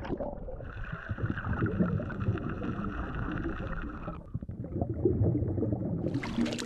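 Muffled underwater sloshing and bubbling around a free diver, with a steady hum over the first few seconds. About six seconds in the sound opens into a wide hiss of waves and splashing as the recording comes up out of the water.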